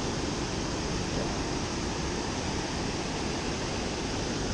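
Steady rush of water pouring through a river lock-and-dam outflow.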